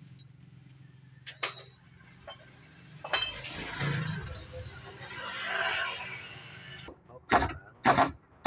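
Workshop handling sounds: a light metallic clink, then a few seconds of uneven scraping and rustling, with voices coming in near the end.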